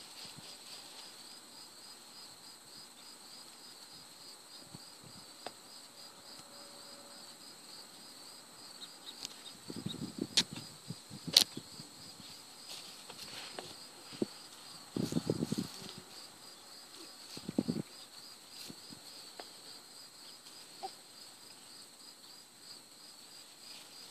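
Insects chirring outdoors: a steady, evenly pulsing high trill. Near the middle come a few short rustling scuffles and a couple of sharp clicks.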